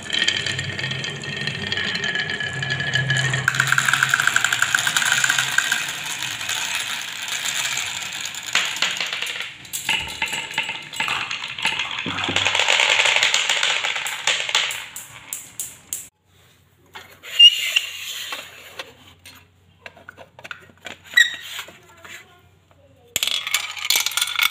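Many small plastic marbles rolling and clattering down wooden and plastic marble-run tracks, a dense rattle of fine clicks. About two-thirds of the way through it thins to scattered clicks and knocks, with a short dense clatter again near the end.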